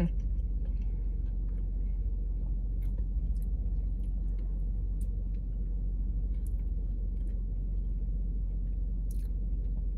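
Steady low rumble of an idling car heard inside the cabin, with faint small clicks and chewing sounds of someone eating a cream-filled donut.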